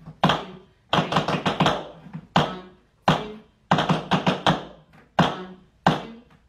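Tap shoes striking a wooden floor in a slow nerve-tap drill. Single strikes alternate with short runs of very fast taps, about four or five to a run, at a slow tempo between eighth and sixteenth notes.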